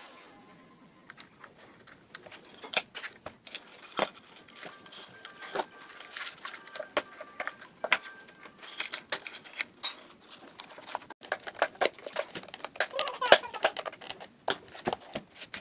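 Handling noise: scattered small clicks, taps and scrapes as hands fit a board panel onto a small wooden speaker box and move its cables, growing busier about halfway through.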